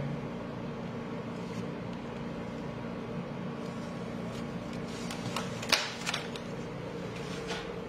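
Steady low room hum, with a few sharp clicks and crackles about five and a half to six seconds in as a plastic clamshell container of raspberries is picked up and handled.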